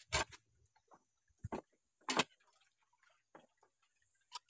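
Dogs eating rice out of a metal bowl and off a plate: scattered short smacks and clicks of chewing and licking, spaced irregularly about half a second to a second apart.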